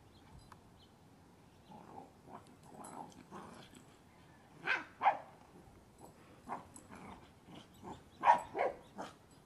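Blue Heeler (Australian cattle dog) barking in a string of short barks, the loudest coming in two quick pairs about five and eight seconds in.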